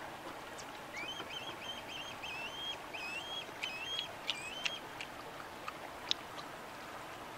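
Osprey calling: a run of short, high whistled chirps, about four a second, with a few sharp clicks near the end.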